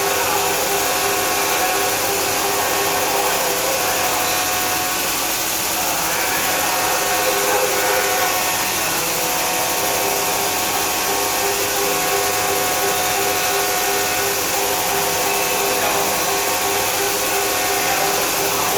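CNC vertical machining center running: a steady whine of several held tones over a constant rushing noise.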